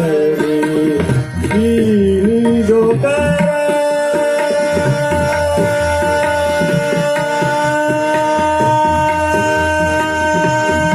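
Hindustani classical vocal music in raag Hansdhwani. A male voice glides through ornamented phrases, then about three seconds in settles on a long steady held note, over harmonium and a tabla rhythm.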